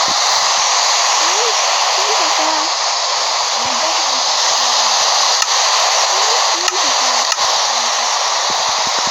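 Loud, steady rushing hiss, with faint high-pitched voices beneath it and a few light clicks in the second half.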